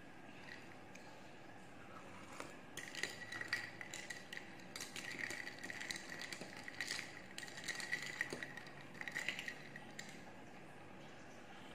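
A long metal spoon stirring iced milk coffee in a tall glass, clinking rapidly against the glass and the ice with a light ringing. It starts about three seconds in, runs for about six seconds and stops.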